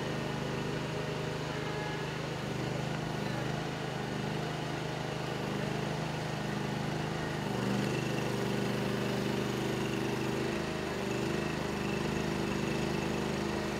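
An engine running steadily, growing a little louder and higher about eight seconds in.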